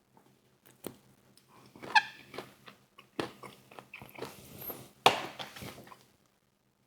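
Close-miked eating of fried chicken wings: bites, chewing and wet mouth noises in irregular bursts, with a brief high squeak about two seconds in.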